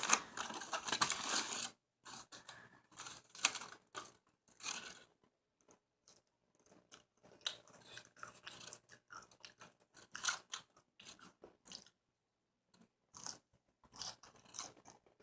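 Close-up chewing of a burger: irregular wet mouth clicks and crunchy bites, busiest in the first couple of seconds, then sparser with short pauses.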